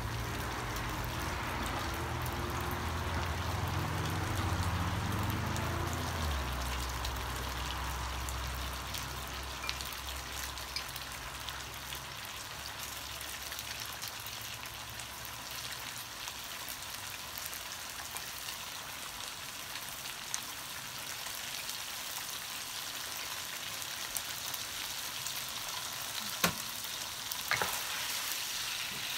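Rice noodles and beef sizzling in a wok, a steady frying hiss, with a low hum that fades out over the first dozen seconds. Near the end a wooden spatula stirs them, knocking a few times against the pan.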